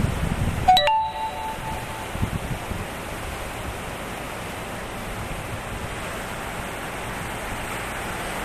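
Storm-driven sea surf and wind making a steady rushing noise. About a second in there is a short click with a brief beep-like tone.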